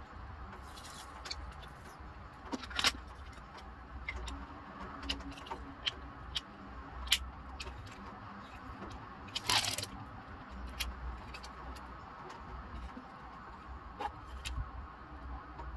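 Small plastic parts of a washi tape dispenser clicking and scraping as it is handled and a tape roll is fitted into it, with a few sharp louder snaps. A low steady hum runs underneath.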